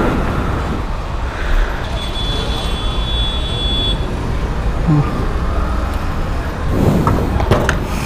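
Petrol-station forecourt noise: a steady low rumble of traffic and engines, with a thin high steady tone for about two seconds in the middle. Near the end come a few sharp clicks as the fuel nozzle is hung back on the dispenser.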